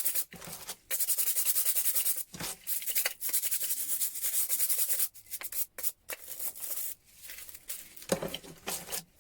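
Rapid back-and-forth scrubbing of a metal wrench to clear it after a Deoxy-C rust-remover soak. The scrubbing comes in several bursts with short pauses between them.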